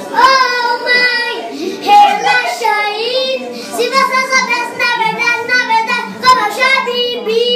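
A young boy singing loudly, holding notes with a wavering pitch.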